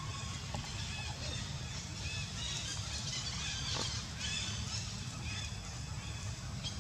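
Infant macaque giving short, high squealing calls over and over, over a steady low rumble.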